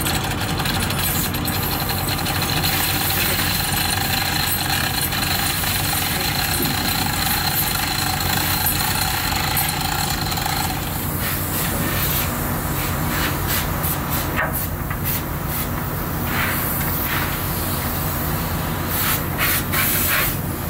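Steady machinery drone with a couple of faint steady tones that stop about halfway. In the second half come light metallic knocks and scraping as a fan motor's rotor shaft is guided down into its stator.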